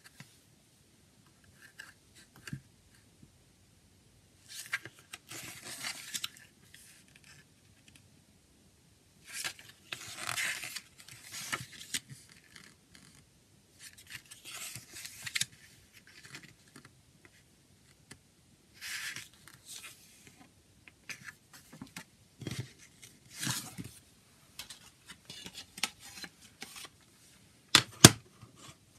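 Paper pages of a CD booklet being turned by hand, in separate rustling swishes every few seconds. Near the end, two sharp clicks, the loudest sounds, from the plastic CD jewel case being handled.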